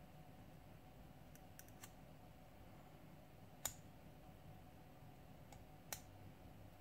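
Two sharp little clicks, a couple of seconds apart, from a thin metal tool prying small parts off an Asus Zenfone 2 smartphone motherboard, over a faint room hum.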